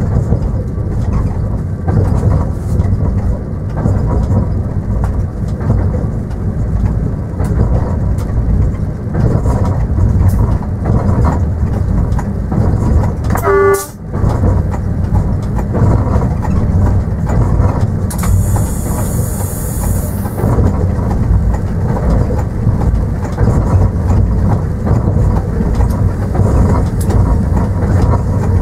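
Train running, heard in the driver's cab: a steady heavy rumble with wheel clatter. About halfway through comes a brief horn toot, and later a hiss lasts about two seconds.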